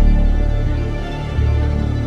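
Slow, dark background music made of held low bass notes, with a new low chord coming in a little over halfway through.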